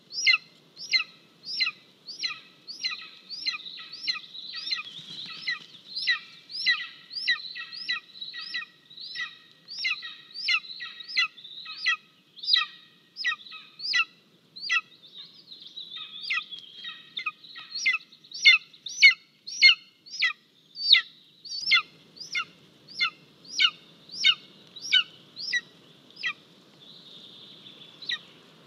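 Golden eagle giving a long run of short, high, downward-slurred calls, about two a second, each with a sharp start; the series stops shortly before the end.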